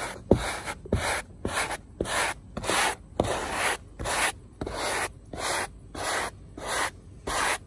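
Hard-bristle hand brush scrubbing old crumbling glue off a fiberglass Jeep Cherokee XJ headliner board, in quick scratchy strokes a little under two a second.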